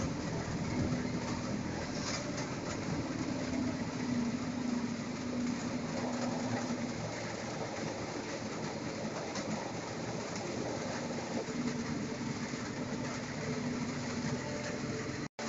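A chain ferry running, heard from inside a bus parked on its deck: a steady mechanical rumble and rattle, with a low engine hum that comes and goes.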